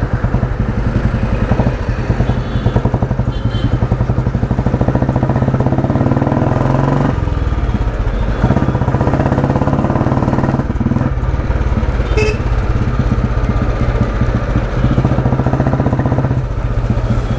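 1991 Royal Enfield Bullet 350's single-cylinder four-stroke engine running under way, a rapid steady thump of exhaust pulses. The engine note shifts about seven seconds in and again about eleven seconds in.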